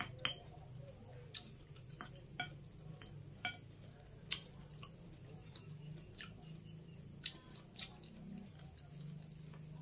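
A spoon and fork clinking and scraping against a plate while eating: about eight sharp, separate clinks, over a low steady hum.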